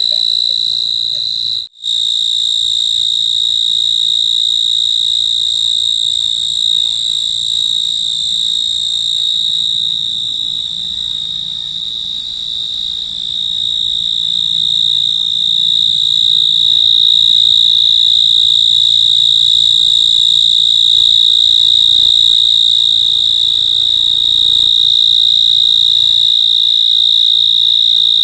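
An insect calling at night: one loud, unbroken high-pitched trill that holds a steady pitch. It cuts out for a moment about two seconds in, and its loudness dips slightly in the middle before rising again.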